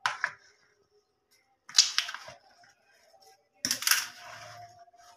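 Spoon scraping and knocking against a plastic bowl while chunks of fruit in cream are stirred, in three short bursts: one at the start, one about two seconds in, and a longer one about four seconds in.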